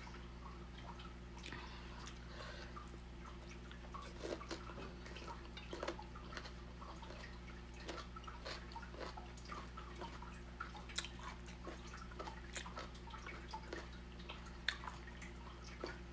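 Close-up wet chewing of a juicy mango and cucumber salad: scattered moist smacks and clicks, with a few sharper clicks, over a steady low hum.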